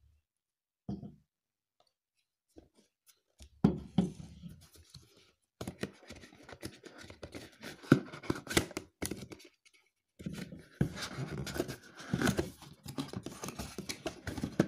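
A boxed phone gimbal's cardboard packaging and plastic wrap being handled and unpacked by hand: irregular scraping, rustling and crinkling with sharp clicks. It starts about three and a half seconds in and pauses briefly after about ten seconds.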